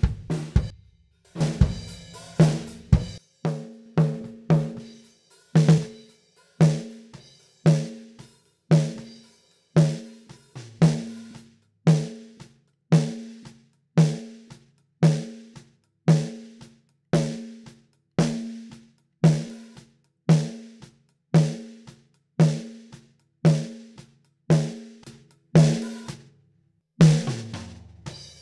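A recorded acoustic drum kit playing a steady kick-and-snare beat with hi-hat and cymbals, about two hits a second, run through a bus compressor plugin. There is a short break about 26 seconds in before the beat starts again.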